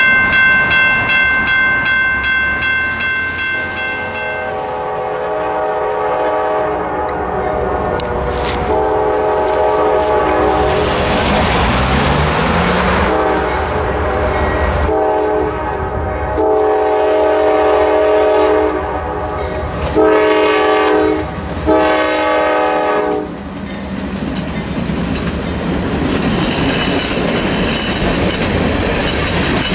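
Grade-crossing bell ringing, then a Norfolk Southern freight locomotive's multi-chime air horn sounding the crossing signal as the train approaches: long blasts, then a short one and a final long one. Near the end the locomotive and the first cars rumble past over the crossing.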